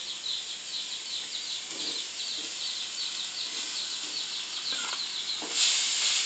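Rice frying in a metal pan, with occasional scrapes of the spatula and a hiss that swells about five and a half seconds in as it is stirred. Behind it, a high chirping repeats about three times a second without a break.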